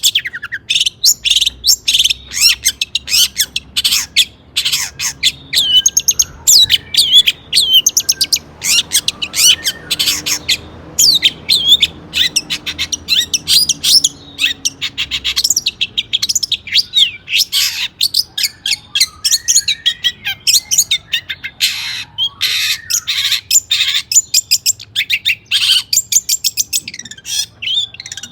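Long-tailed shrike (cendet) singing in full, non-stop song: a fast, dense run of harsh chattering and sharp whistled notes.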